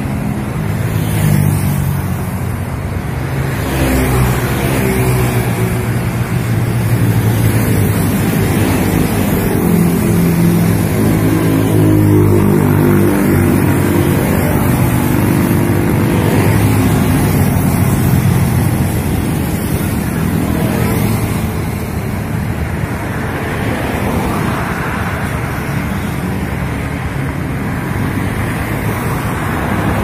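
Road traffic of cars and motorcycles driving past, with engines and tyre noise running continuously and growing louder through the middle stretch before easing off.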